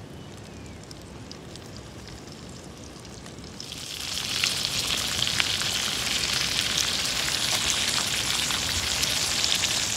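Food going into hot oil in a cooking pan, which starts sizzling about four seconds in and keeps up a steady crackling fry.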